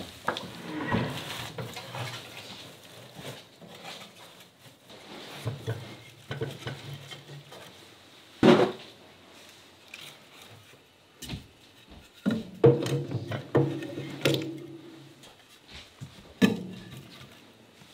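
Dry twigs rustling and split kindling sticks clattering and knocking as they are stacked into a wood stove's firebox to lay a fire, with several sharp wooden knocks, the loudest about halfway through.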